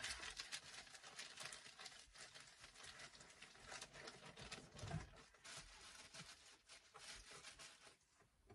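Faint rustling, crinkling and light ticks of packing materials and small items being handled, with one soft thump about five seconds in.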